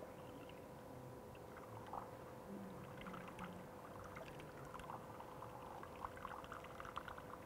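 Water poured from a plastic bottle into a steel pipe on top of a centrifugal pump, trickling and splashing faintly as it runs down into the pump casing: priming the pump by filling it with water so it does not run on air. A faint steady hum runs underneath.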